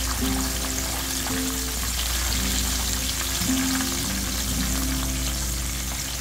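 Battered crab meatballs deep-frying in a wok of hot oil: a steady, dense crackling sizzle, with soft background music playing over it.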